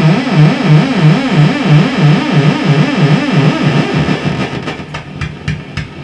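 Fender Vibro King valve guitar amplifier oscillating: a loud warbling tone whose pitch wobbles evenly up and down several times a second, which the technician ties to the tremolo circuit. The tone fades about four seconds in and gives way to a run of short clicks.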